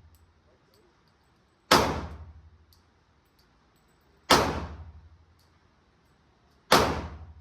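Three handgun shots fired singly, about two and a half seconds apart, each ringing out with roughly a second of echo.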